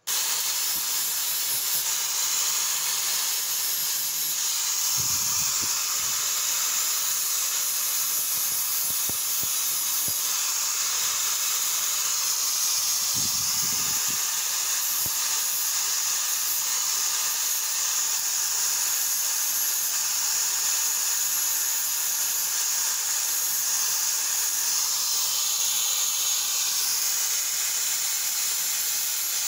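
Angle grinder disc grinding a steel axe head: a steady, high-pitched grinding hiss that starts abruptly and holds level, with a couple of brief low thumps.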